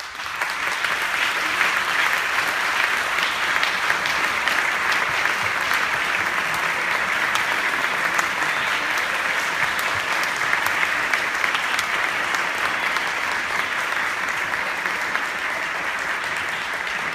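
A large audience applauding, a dense, steady mass of clapping.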